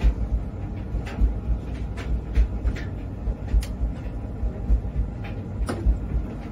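Scattered sharp clicks and light metal taps from a screwdriver working on a gas boiler's fan housing, over irregular low thumps about twice a second.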